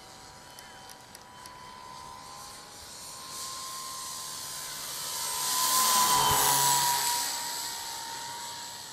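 Electric RC model airplane's motor and propeller whining as it makes a low fly-by: the whine grows to its loudest about six seconds in, then falls slightly in pitch and fades as the plane passes.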